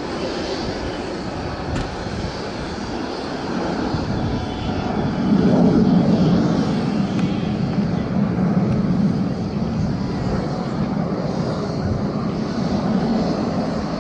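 A formation of Snowbirds CT-114 Tutor jet trainers flying over, their jet engines a steady rumble that swells about five seconds in and holds.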